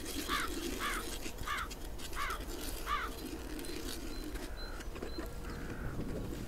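A bird calling in a run of five short, identical calls, about one every two-thirds of a second, which stop about three seconds in and are followed by a few fainter calls. A steady low rumble lies underneath for the first four and a half seconds.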